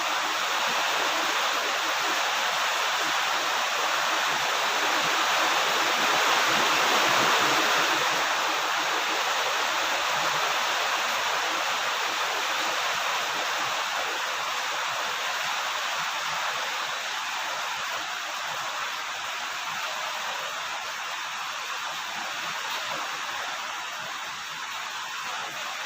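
Steady heavy rain falling, a dense even hiss that swells a little about six seconds in and then eases slightly.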